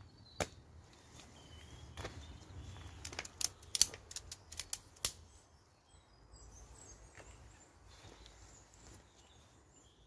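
Sharp clicks and knocks from a hammock-tent's pole and fittings being handled, a couple of single ones and then a quick cluster about three to five seconds in. Faint bird chirps come through in the background.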